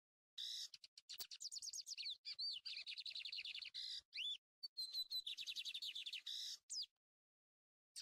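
Lined seedeater (bigodinho) singing in the 'mineiro' song style: a long, fast song of rapid runs of short down-slurred notes broken by a few harsh buzzy notes. It stops about 7 seconds in.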